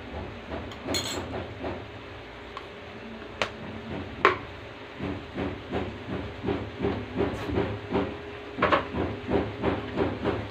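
Sardines in tomato sauce simmering in a wok: a steady hiss with bubbles popping, which become a run of quick, regular blips about halfway through.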